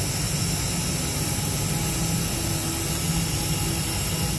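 Steady rushing noise of shop machinery running, with a low hum underneath and no distinct clicks or knocks.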